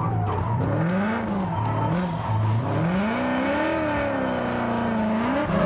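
Ford Mustang V8 drift car's 930-horsepower engine revving up and down, rising and falling a few times, then held high before dropping near the end. The tyres squeal as the car slides sideways in a drift.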